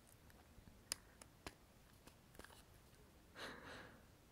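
Near-silent pause in close-up whispering: a few faint sharp clicks in the first half, then one soft breathy exhale about three and a half seconds in.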